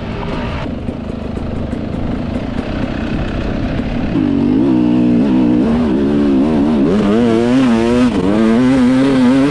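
Two-stroke dirt bike engine under a rider: at first a steady rush of engine and wind noise, then from about four seconds in the engine revs up and down over and over as the rider works the throttle on a hill climb.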